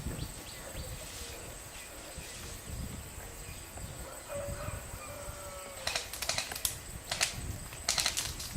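Outdoor background, then from about six seconds in several short clusters of sharp clicks: BB guns firing the opening shots of the game.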